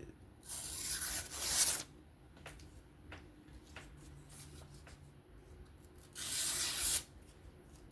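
A freshly freehand-sharpened, hollow-ground knife blade slicing through paper to test the edge. There are two rasping cuts: a longer one near the start and a shorter one near the end, with a few light ticks between.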